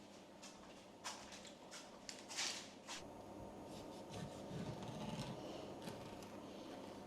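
Faint handling sounds: a scatter of light clicks and taps, with a short rustle about two and a half seconds in and a soft low rumble a little later.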